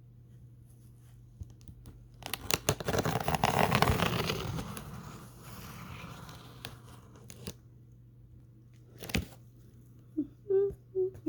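Packaging being torn open by hand: a burst of tearing and crinkling with quick crackles about two seconds in, dying away over the next few seconds. A single sharp click follows later.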